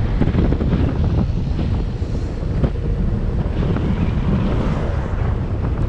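Wind buffeting the microphone of a camera on a moving bicycle, a steady low rumble.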